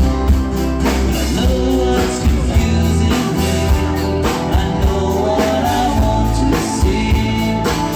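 Live rock band playing an instrumental passage: guitar over a steady drum beat.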